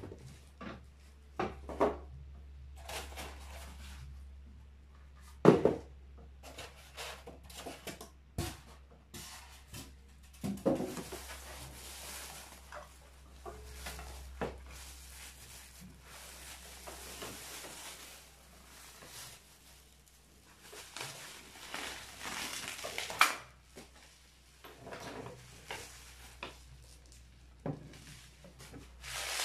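Unpacking and handling noises: a circular saw and its accessories being taken out and set down, with scattered knocks, clicks and rustling packaging. The loudest is a knock about five seconds in. A low steady hum runs underneath.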